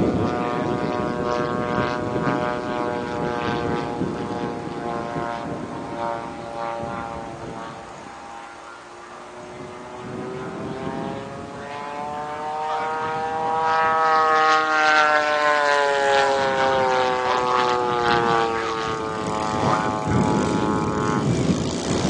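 Radio-control model Pitts biplane's engine and propeller in flight, one steady buzzing note. It fades as the plane moves away, then grows loud again about halfway through, its pitch rising and then falling as the plane passes close.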